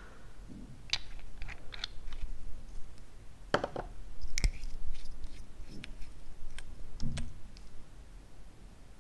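Small cosmetic bottles and their plastic caps clicking and tapping against a glass dish as they are handled: about a dozen scattered light clicks, the sharpest about four and a half seconds in.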